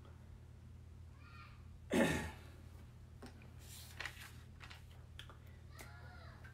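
A man sighs once about two seconds in, a brief loud breath out, over a low steady room hum; a few faint muttered syllables and soft clicks follow.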